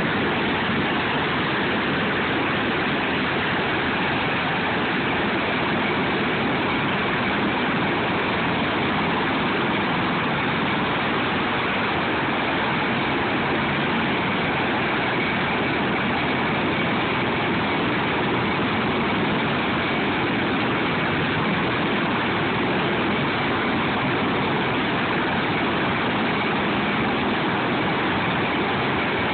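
Steady rushing turbine and rotor noise of a Sikorsky MH-53E helicopter, with a faint high whine in the second half.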